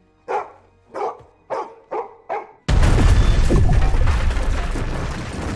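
A dog barks five times in quick succession. Then, about two and a half seconds in, a sudden loud blast and crash as the room is blown in, with a long rumble of scattering debris that slowly dies down, under film score music.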